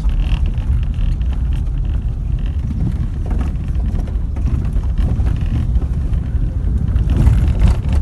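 Jeep driving slowly over a rough dirt road, heard from inside: a steady low rumble of engine and tyres that swells briefly about seven seconds in.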